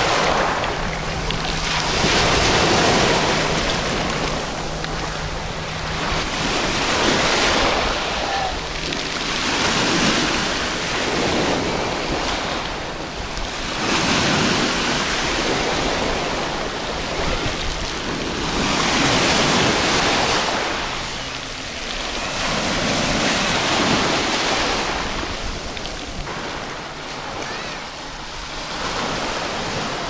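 Small sea waves breaking and washing up a pebble beach. The surf swells and falls back every two to three seconds.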